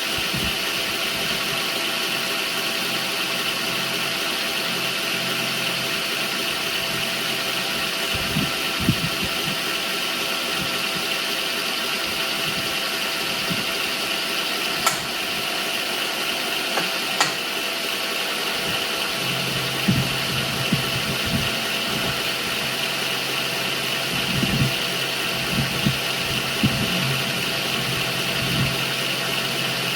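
Small milling machine running steadily, with a constant motor and spindle hum and whine. A couple of sharp clicks come about halfway through, and a run of soft low knocks follows in the second half.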